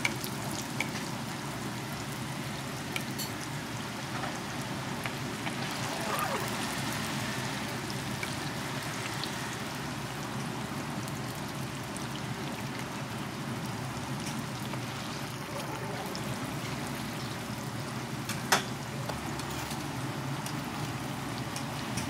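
Hotteok (filled sweet dough pancakes) sizzling steadily in a shallow tray of hot frying oil, with a few light clicks and one sharper click late on.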